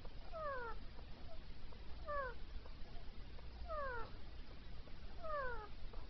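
Female Indian ringneck parakeet giving four short falling calls while having its head scratched, each call about half a second long and about a second and a half apart, with a few faint chirps in between.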